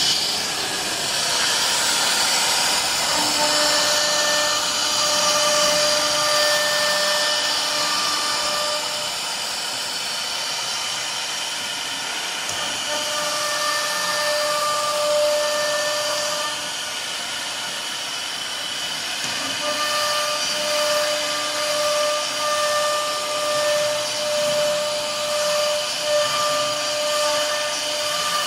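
Woodmaster RT-1325 single-head CNC router's spindle running and cutting a wooden board, over the steady rush of its dust-extraction hose. A steady whine comes and goes in stretches of several seconds.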